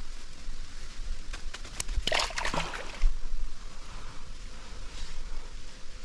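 Water sloshing at the bank with a short splash about two seconds in, among a few clicks and rustles of handling.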